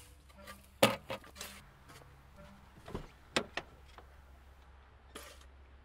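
Car door being handled: a sharp latch-like knock about a second in, then lighter clicks and knocks, and a short rustle near the end.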